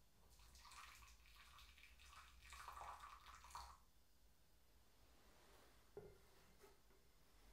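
Hot water poured from a bamboo ladle into a ceramic tea bowl, a soft splash lasting about three seconds. About six seconds in, a single light knock with a short ring as the ladle meets the cast-iron kettle.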